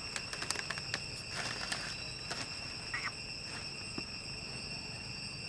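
Steady insect drone, several even high tones at once, with scattered light crackles of dry leaf litter being stirred as the macaques move.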